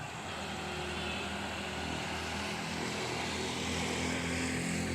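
Large bus engine running with a steady drone, rising slightly in pitch and level from about halfway through.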